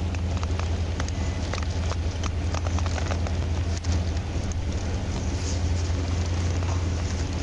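A vehicle engine idling with a steady low hum, with scattered clicks and rustling over it, most of them in the first few seconds.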